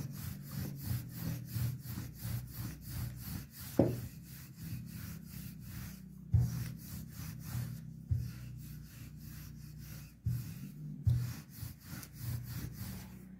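Wooden rolling pin rolled back and forth over floured dough on a countertop: quick, even rubbing strokes with low thuds, and a few louder knocks as the pin is set down or turned.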